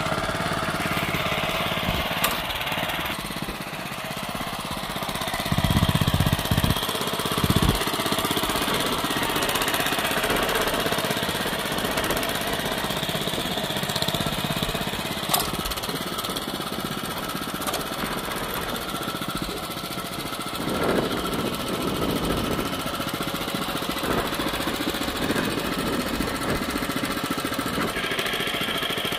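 Honda FJ500 DLX tiller's small four-stroke petrol engine running steadily while it tills soil, with two brief louder low bursts about six and seven and a half seconds in.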